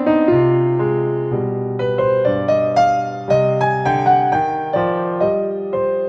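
Background music: a gentle piano or electric-piano melody, notes struck a few times a second and left to ring.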